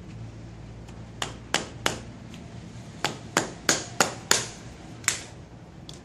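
A screwdriver prying and knocking at the metal back of a small air-conditioner fan motor to work its casing apart. It makes a quick, irregular run of about nine sharp clicks, each with a short ring.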